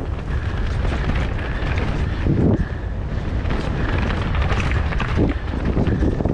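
Mountain bike riding fast down a dirt and stony forest trail: wind buffeting the helmet-mounted microphone over the rumble and rattle of tyres and bike on rough ground, with heavier thumps over bumps about two and a half seconds and five seconds in.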